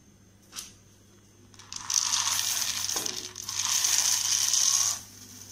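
Dry soya chunks poured by hand into a steel pot of boiling water: a bright rattling rush in two spells, with a short click about half a second in.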